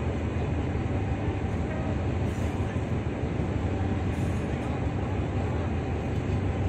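Diesel-electric locomotive of the SRT GEA class standing and idling, its engine running steadily with a low-pitched sound.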